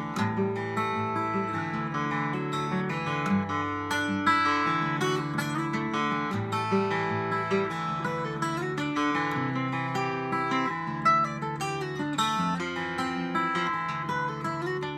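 Solo cutaway acoustic guitar played fingerstyle: a picked melody over ringing bass notes, steady throughout.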